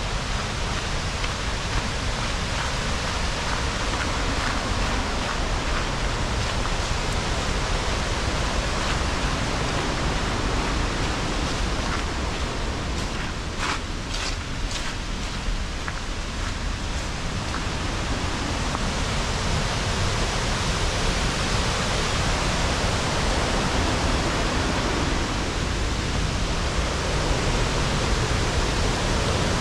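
Waterfall rushing: a steady, even wash of falling water. A few faint clicks sound in the first seconds and a short cluster of sharper clicks about halfway through.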